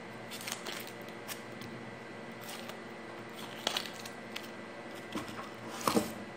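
Knife slicing an onion on a cutting board: a handful of irregular short cuts and taps, the loudest near the end.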